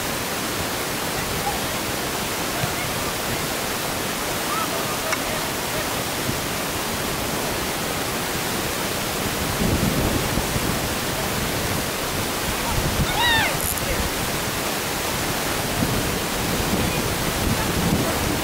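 Wind on the microphone, an even hiss with low rumbling gusts that grow stronger in the second half. A faint voice calls out once, far off, about thirteen seconds in.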